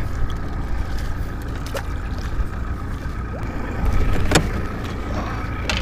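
Steady low rumble of wind and lapping water around a small fishing boat, broken by a few sharp knocks, the loudest a little over four seconds in.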